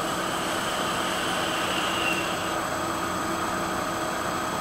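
Steady airy hiss of a long draw through electronic vape devices, one of them a dripping atomizer.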